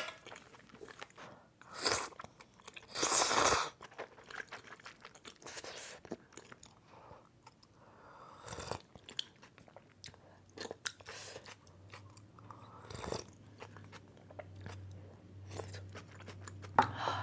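Close-miked eating sounds: chewing and wet mouth clicks over baked mussels and fish cake noodle soup, with a few short, loud noisy sips of broth from a bowl. A faint low hum comes in about ten seconds in.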